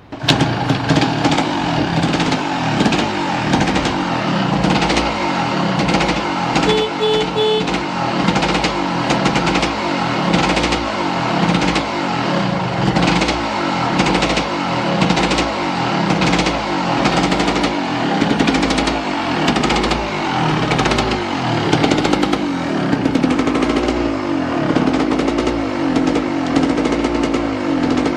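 Yamaha DT200R's two-stroke single-cylinder engine catching right at the start and running, its pitch rising and falling with the throttle. It runs evenly with no abnormal noises.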